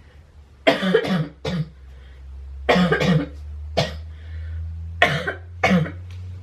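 A woman coughing hard in three short fits of two or three coughs each, a feigned coughing fit, with a steady low hum underneath.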